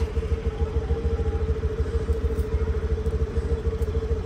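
An engine idling steadily, with a fast, even low throb and a constant hum.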